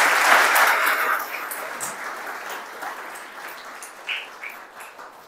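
Audience applauding, densest in the first second and then thinning out to scattered claps.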